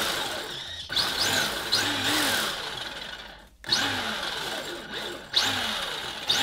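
Electric drive of an RC drift car revving in short throttle bursts, about five times, each rising sharply and then winding down.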